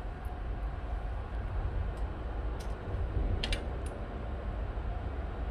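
A few small, sharp metal clicks as a bolt and washers are handled and fitted against the steel frame and glass of a stove window, over a steady low rumble.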